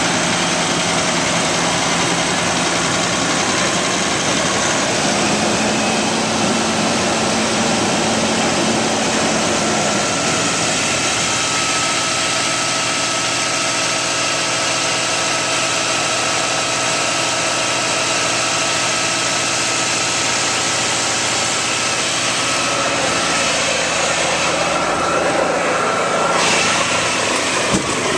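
Caterpillar C-10 inline-six diesel engine of a Kenworth T800 concrete mixer truck idling steadily, its tone shifting slightly a few times.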